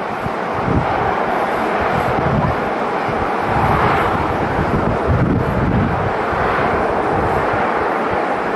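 Steady noise of jet aircraft engines across the airport, swelling a little about four seconds in, with irregular low gusts of wind on the microphone.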